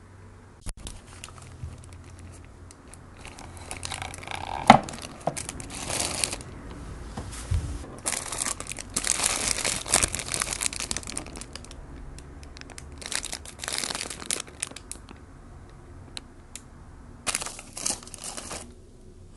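Paper burger wrapper crinkling and rustling in several bouts as a burger is unwrapped by hand, with one sharp tap about five seconds in.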